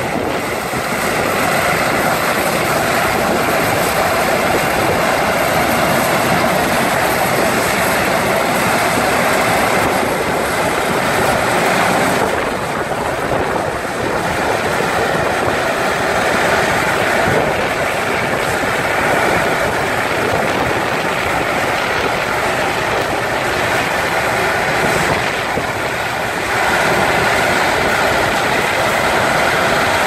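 Vintage Claas Matador combine harvester running at work while cutting and threshing standing wheat: loud, steady mechanical running of engine and threshing gear, dipping slightly in loudness around twelve seconds in and again shortly before the end.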